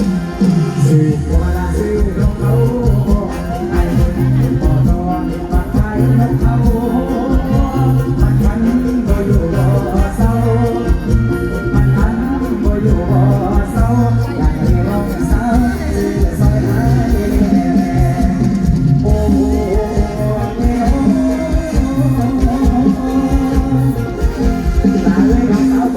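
Live mor lam band music with a steady beat and heavy bass, with a melody line running over it.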